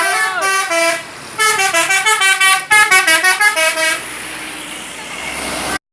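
Indonesian bus 'telolet' multi-tone musical horn playing quick stepping melodies: one short phrase, then after a brief pause a longer, faster run of notes. It is followed by a rising rush of passing-vehicle noise that cuts off suddenly near the end.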